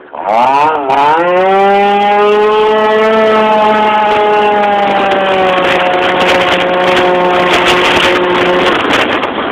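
Yamaha Jog RR scooter's two-stroke engine, fitted with a Hebo Manston kit, revving hard. It blips, dips, then climbs and holds a high steady pitch under acceleration, and backs off near the end.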